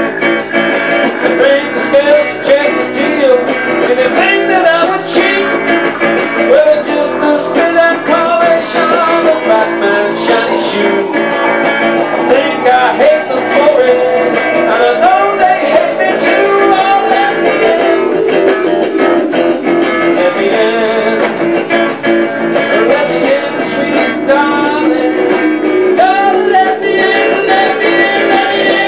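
Electric guitar and electric bass playing together over a drum machine, a continuous instrumental passage.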